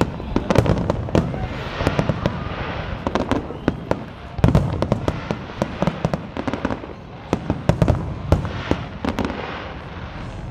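Aerial fireworks shells bursting: a rapid series of sharp bangs and crackles, several a second.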